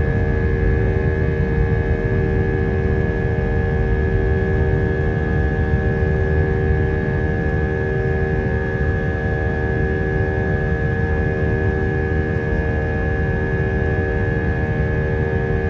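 Airbus A320-200's jet engines running steadily, heard from inside the passenger cabin: a loud low rumble with several steady whining tones on top.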